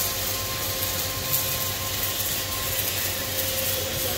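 Steady machinery noise from an automated pressure-vessel nozzle welding station: an even hiss with a constant high hum and a low drone underneath.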